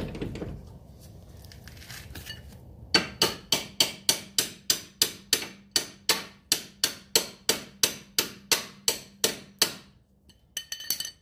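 Rapid, evenly spaced metal-on-metal knocks, about four a second for some seven seconds, each with a short ring, then a few quicker knocks near the end. They come from the strut-to-knuckle bolt being worked back into place during a strut installation.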